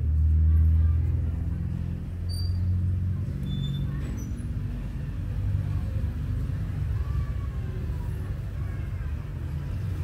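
A low rumble, strongest for the first few seconds and then steady, with a few faint short squeaks as electrical tape is pulled off the roll and wrapped around the wire splices.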